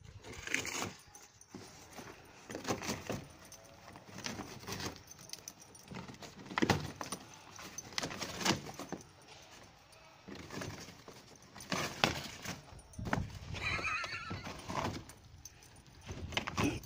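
A dog tearing at a cardboard box: irregular bouts of cardboard ripping, rustling and flapping with short pauses between.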